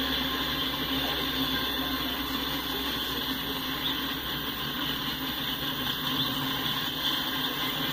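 Double-stack intermodal well cars rolling past on the rails: steady wheel-on-rail noise from the freight train going by.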